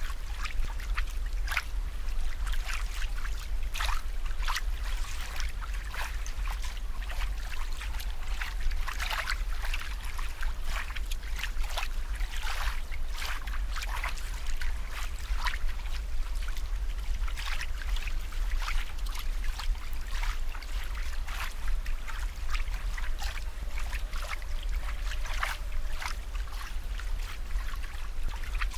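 Water trickling and bubbling, with many small irregular splashes and drips over a steady low hum.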